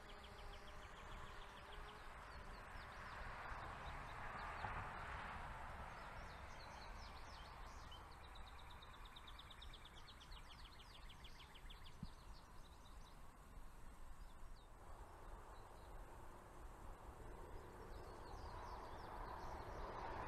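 Faint rural outdoor ambience with runs of high, rapid chirping trills, several seconds each. A faint steady hum fades out about two seconds in, and a soft rushing swell rises and falls a few seconds later.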